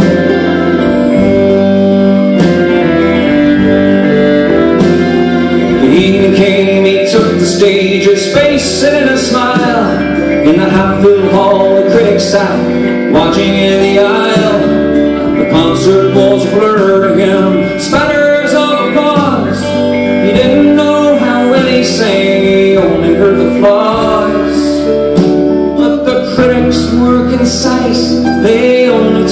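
Live band music with acoustic guitar, violin, keyboard and drums; a man's singing voice joins after about six seconds, with drum and cymbal strikes keeping the beat.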